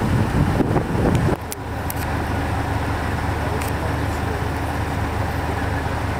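Wind buffeting the microphone for about the first second and a half, then a vehicle engine running steadily with a low hum.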